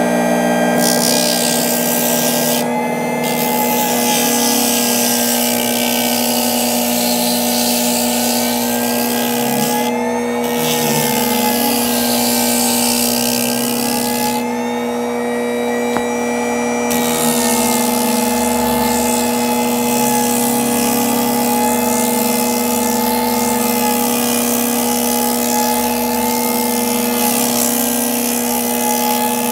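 A small bench-top edge sander's electric motor running with a steady hum while the edge of a glued, layered leather belt is sanded on its drum, giving a continuous hiss. The hiss breaks off briefly about three times, near 3, 10 and 15 seconds in, as the belt is lifted and repositioned.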